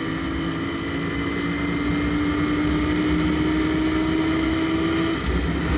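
Shineray motorcycle engine pulling under acceleration through an exhaust pipe with a hole drilled in it, which makes it noisy. Its note rises slowly and steadily, then drops suddenly about five seconds in.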